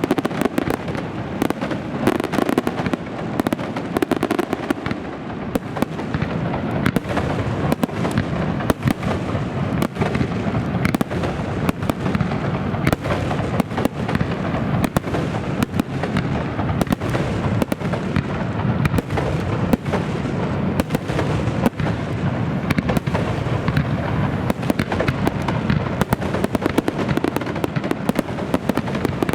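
A fireworks display in full flow: dense, continuous crackling and popping with many rapid reports, no pause throughout.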